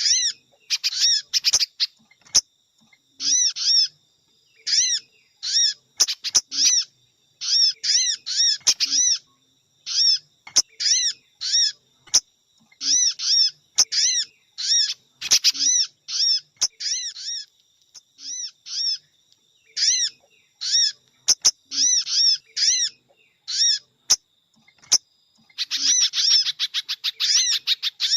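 Bird-lure recording of sogon and spiderhunter (pijantung) calls: loud, high, short arched chirps in quick groups of two to five, repeated about once a second, breaking into a rapid trill near the end.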